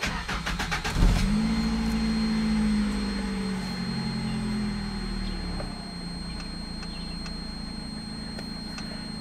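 Mazda B2600 pickup's 2.6-litre four-cylinder engine being started: the starter cranks for about a second, the engine catches and runs at a fast idle, then drops to a lower steady idle about six seconds in.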